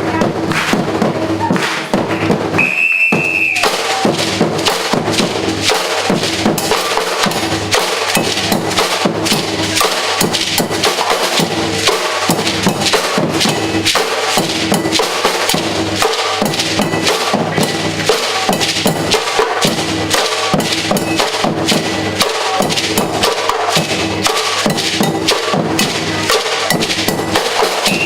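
Batucada percussion band drumming a fast, dense rhythm. About two and a half seconds in the drums drop out for about a second under a single whistle blast, then come back in; another whistle blast sounds right at the end.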